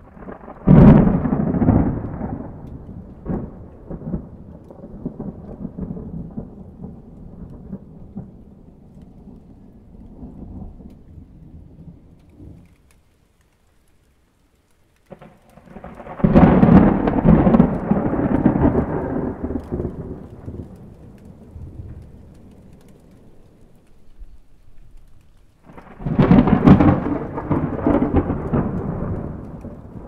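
Thunderstorm: three rolls of thunder, each starting with a sharp clap and rumbling away over several seconds, with steady rain falling on a puddle between them. The sound drops out briefly about halfway through.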